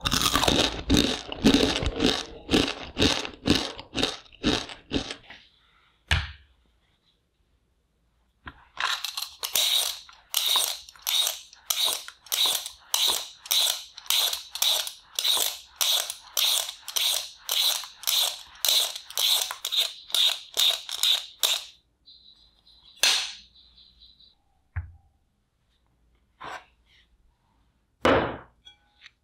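Y-peeler blade scraping the skin off a raw red-skinned potato in quick repeated strokes, two to three a second, with a pause about a fifth of the way in. Near the end come a few separate knocks.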